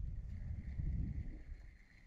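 Wind buffeting the microphone in uneven gusts that ease off near the end, over a faint steady high drone.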